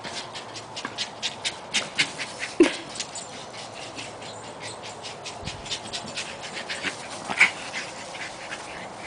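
Dogs at play. One gives a short whimper about two and a half seconds in, and there is another short, sharp sound just past seven seconds. Under these runs a string of quick soft pulses, about three a second, through the first three seconds, in the manner of dog panting.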